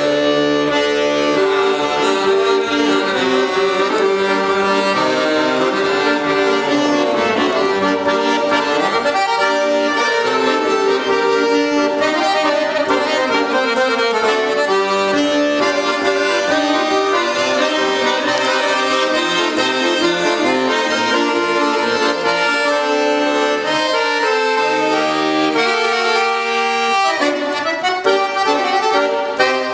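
Accordion playing a tune, a melody over sustained chords.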